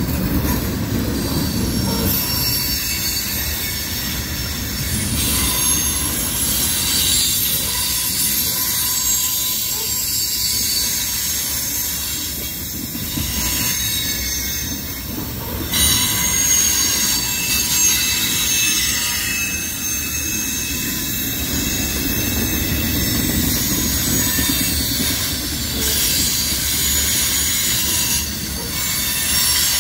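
Loud screeching of a passing freight train's wheels as its covered hopper cars roll by: several shrill high-pitched squeal tones that shift and change every few seconds, over the steady low rumble of the wheels on the rail.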